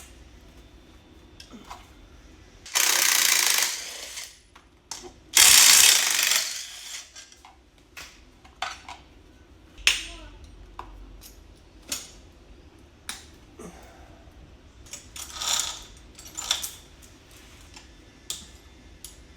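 Clicks, clinks and knocks of hand tools and metal parts during engine installation on a minibike, with two noisy bursts of a second or more each near the start.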